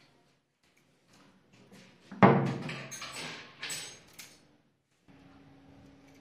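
A wooden door knocked or bumped once, a sudden thud about two seconds in, followed by about two seconds of rattling clatter. A faint steady hum starts near the end.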